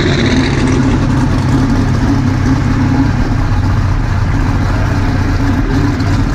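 Drag race car engine idling steadily and loudly, with a deep, even exhaust note that does not rev.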